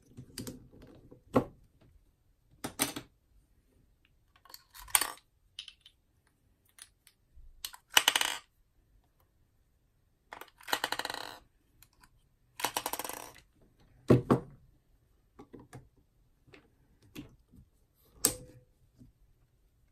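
Eneloop AA batteries clicking and rattling as they are pulled out of and dropped into the battery compartment of a Sea & Sea YSD2 underwater strobe, with the plastic compartment cap twisted off and back on. Scattered single clicks with three longer rattles in the middle and a sharper click near the end.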